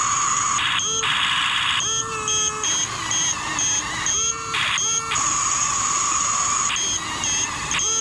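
High electric whine and buzz from a Double E E579 RC bulldozer's electric drive, switching on and off in short spells as the controls are worked.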